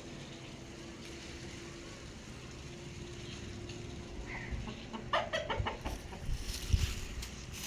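Aseel chicken clucking: a short chirp about four seconds in, then a quick run of clucks a second later, with a few low thumps after it.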